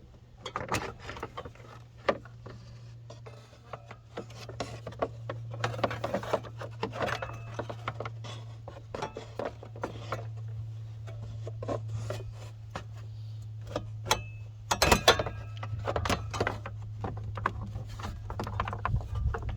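Plastic radiator fan shroud being worked out of the engine bay around the clutch fan, with irregular scraping, rubbing and knocking of plastic against fan and radiator. A cluster of louder knocks comes about 15 seconds in, over a steady low hum.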